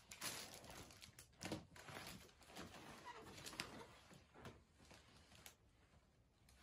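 Faint handling noises: soft rustling with scattered small clicks and knocks, two of them sharper, one about a second and a half in and one past the middle, dying down near the end.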